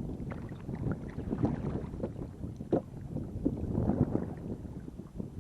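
Wind buffeting the microphone with a low rumble, and water slapping and splashing irregularly against the side of a canoe on choppy lake water.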